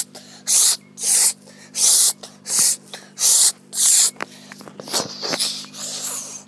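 Rhythmic hissing puffs of breath close to the microphone, about one and a half a second, then softer rustling with a few clicks after about four seconds.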